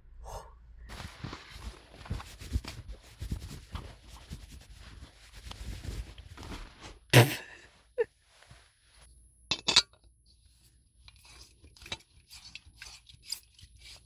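Rustling and scraping of a snow-covered winter hood and jacket as snow is brushed and shaken off, with many small clicks. One sharp knock comes about seven seconds in, followed by scattered light clicks and knocks of things being handled.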